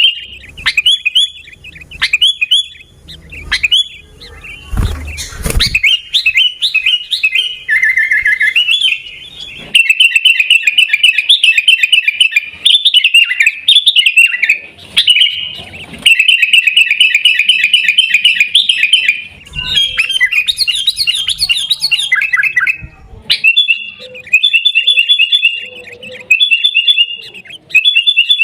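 Sooty-headed bulbul (kutilang) singing energetically in fast, repeated chirping phrases broken by short pauses. A brief low rumble sounds about five seconds in.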